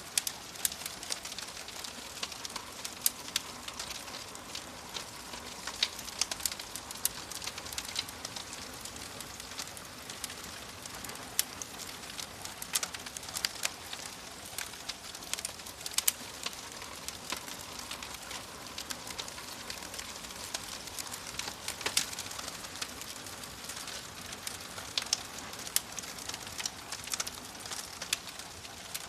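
Fire crackling: a steady hiss broken by frequent, irregular sharp pops.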